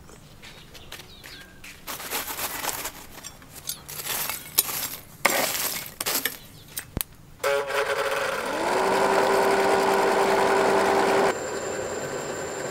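Irregular clattering and clinking of charcoal and metal tools with a few sharp knocks. Then a charcoal forge's blower starts up with a rush of air, its whine rising over about a second and holding a steady pitch; its level drops near the end.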